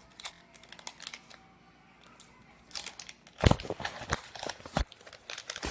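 A baseball card pack's wrapper being torn open and crinkled, faint at first, then a dense crackling with a few sharp cracks from about halfway through.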